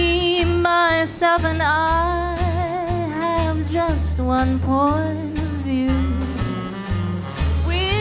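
Female vocalist singing a slow swing tune with a small jazz band, her held notes wavering with vibrato over a walking bass line of about two notes a second and light drum ticks.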